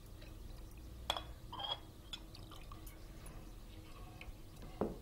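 Faint drips and a few light clicks as soaked whole green gram and its water are scraped off a bowl with a slotted steel spatula into a pressure cooker.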